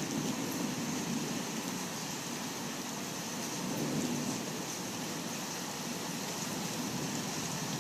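Steady rain with a low rumble of thunder that is fading at the start and swells briefly again about four seconds in.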